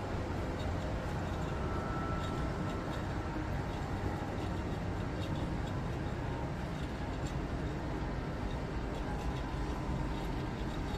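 Steady low rumbling background noise of a cruise-ship casino floor, with faint scattered clicks and a brief faint tone about two seconds in.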